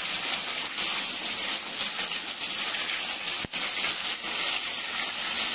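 Chicken pieces frying in hot oil in an aluminium kadai: a steady sizzle that briefly cuts out about three and a half seconds in.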